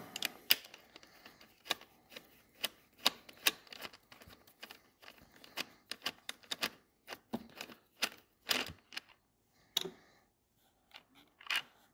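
Ratchet wrench with a 10 mm socket clicking in quick, irregular strokes as it loosens a bolt on the airbox housing of a Firman inverter generator.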